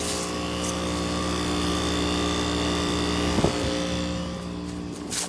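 1996 Heil two-ton heat pump outdoor unit running in heat mode: a steady scroll-compressor hum with several level tones under the fan's even whoosh. There is one brief bump about three and a half seconds in.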